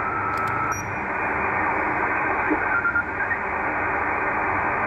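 Receiver hiss of HF band noise from a Yaesu FT-757GX transceiver's speaker on the 40-metre band, the reference noise for the S-meter check. A few faint whistles come and go as the dial is tuned.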